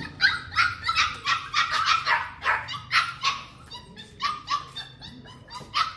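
Dogs barking and yipping in a quick run of short, high-pitched calls, about three a second, thinning out after about three and a half seconds.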